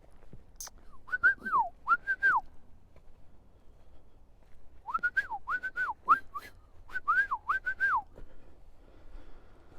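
Bird-like clear whistled notes, each rising and then falling in pitch: a run of four about a second in, then a longer run of about eight.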